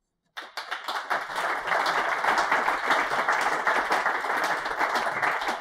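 Audience applauding: many hands clapping together, starting about a third of a second in and building over the first second or two.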